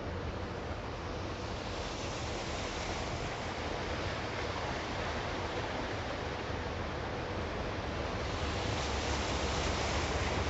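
Heavy rain falling: a steady rushing hiss that grows a little louder in the last couple of seconds.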